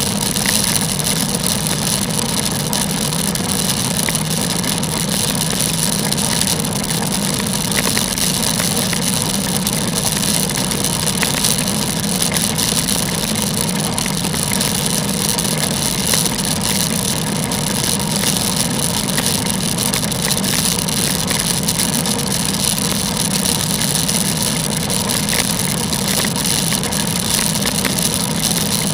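Steady wind and tyre noise from a bicycle ride on wet roads in rain, heard as an unbroken rushing hiss on the action camera's microphone.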